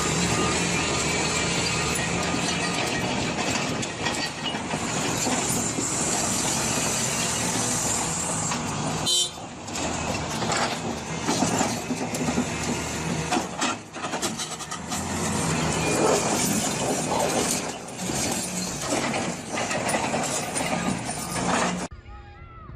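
Loud, dense heavy-vehicle noise, dipping briefly about nine seconds in and cutting off abruptly near the end.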